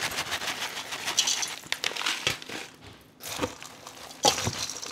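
Bacon bits shaken from a plastic bag onto a salad, with the bag crinkling and the bits ticking down for the first couple of seconds. After a short lull, the salad is tossed in a stainless steel bowl, leaves rustling and the utensil clicking near the end.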